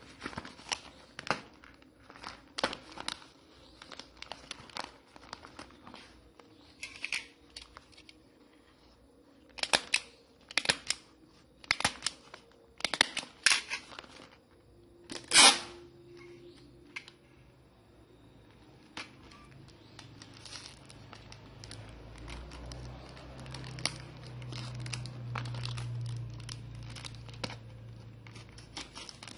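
Plastic and paper packaging crinkling and crackling as a mailer pouch is wrapped and taped, in a run of sharp crackles through the first half, the loudest about fifteen seconds in. Later the crackles thin out and a low hum rises underneath.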